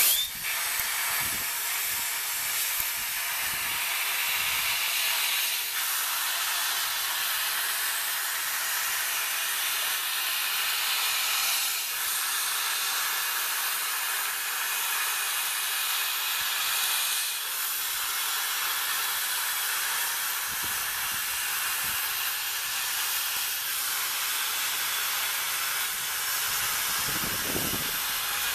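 CNC plasma cutter's torch arc starting with a sudden loud burst, then a steady, high-pitched hiss as it cuts through steel plate.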